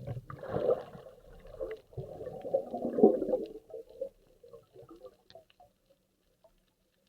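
Underwater gurgling and bubbling water moving around the camera in irregular bursts, dying away after about four seconds and leaving a faint steady hum.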